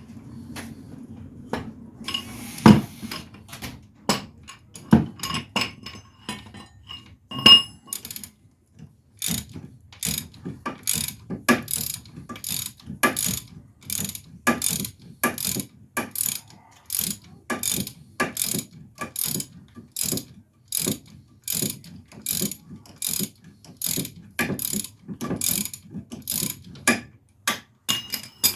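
Ratchet wrench being worked back and forth on a bolt. There are a few louder knocks at first, then an even run of clicking strokes about two a second that stops near the end.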